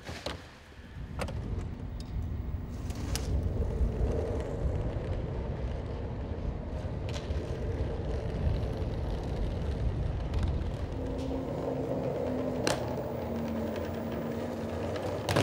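Steady low rumble with a few sharp clicks scattered through it, and a faint hum for a few seconds near the end.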